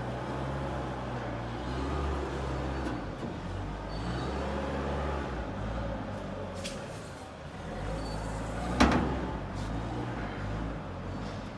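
Realrez CK6130 CNC lathe running, a steady machine hum with grinding machining noise over it. A few light clicks come through, and one sharp clunk, the loudest sound, comes near the end.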